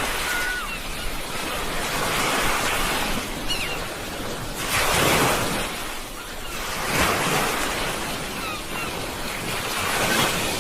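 Sea waves washing onto the shore, the surf rising and falling in repeated surges, the biggest about five seconds in.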